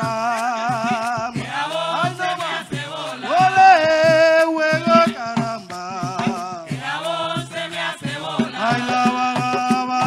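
Live bullerengue sentao: a sung voice with wide vibrato, held and shifting notes, over hand drums keeping the beat.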